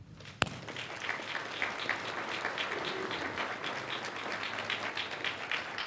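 Audience applause from a full hall, dense and even, fading out near the end. It opens with a single sharp knock just before the clapping starts.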